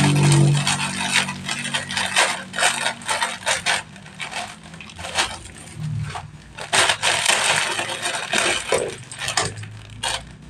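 Dry instant-noodle block being crushed by hand inside its plastic packet: a dense run of crinkling and crackling that comes in bursts with short pauses.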